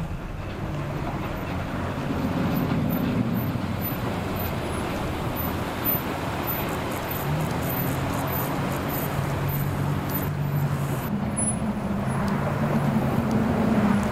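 A motor vehicle engine running at low revs, its note shifting up and down a few times, over a steady outdoor noise.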